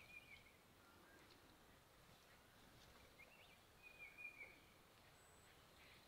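Near-silent forest ambience with a few faint, short bird chirps: a couple right at the start and a brief run of chirps a little past the middle.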